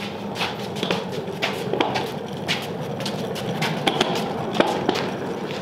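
Small casters of a heavily loaded engine cart rolling across a rough concrete shop floor, a steady rumble with frequent clacks and knocks as the load rattles on it.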